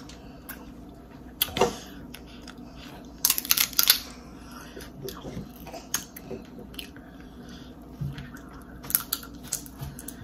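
Crab shells being cracked and picked apart by hand while eating, with sharp crackles a few times, the loudest cluster about three to four seconds in, along with chewing.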